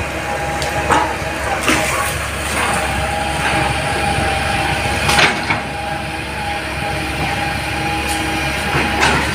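Hitachi hydraulic excavator's diesel engine running with a steady whine, broken by a few sharp knocks and cracks, the loudest about five seconds in.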